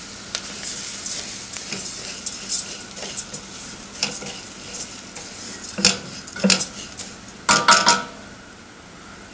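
A wooden spatula stirs dry red lentils through hot oil in a stainless steel pot, with the lentils rustling and scraping against the metal over a light sizzle. A few sharper scrapes and knocks on the pot come about six to eight seconds in.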